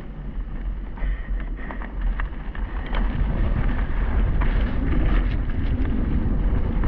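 Wind rushing over a handlebar-mounted action camera on a mountain bike riding downhill, with a low rumble and scattered clicks and knocks from the bike over rough trail.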